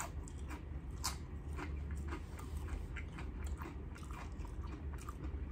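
Close-miked chewing: a person biting and chewing a small crunchy morsel of food, with irregular small crunches and mouth clicks, over a low steady hum.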